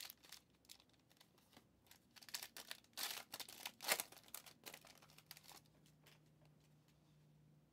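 A trading card pack's wrapper being torn open and crinkled in a run of short rips, loudest about three to four seconds in, then dying away as the cards come out.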